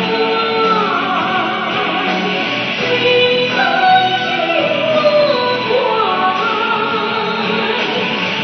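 A male singer singing live into a handheld microphone over an instrumental backing, his melody gliding between long held notes.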